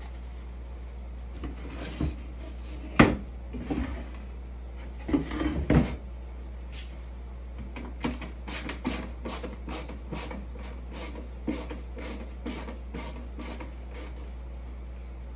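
A few loud knocks and bumps, then a hand screwdriver driving a screw into a wooden step, with a short scraping stroke about two and a half times a second for several seconds. A steady low hum runs underneath.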